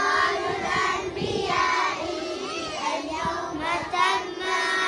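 A group of young children singing together, their voices rising and falling in a chant-like song.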